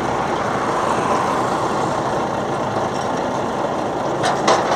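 A steady engine-like running noise, with three or four sharp knocks near the end.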